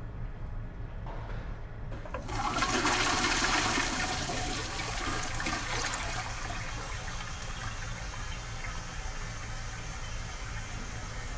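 Toilet flushing: a sudden rush of water about two seconds in, loudest for the first couple of seconds, then easing into a steady running of water.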